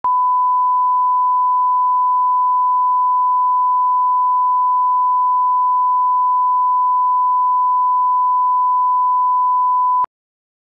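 A 1 kHz line-up test tone: a single pure, steady beep held for about ten seconds, then cut off suddenly.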